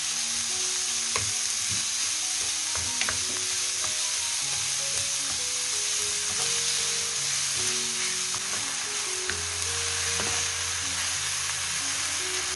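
Minced beef frying with onion and garlic in oil in a nonstick pan, sizzling steadily as it is stirred and pressed apart with a wooden spoon, with a few light clicks of the spoon against the pan.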